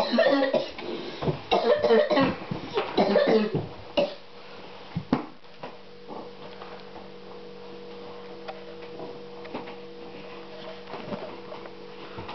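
A boy coughing and choking in fits for about four seconds, then two sharp knocks. After that comes a quiet, steady hum.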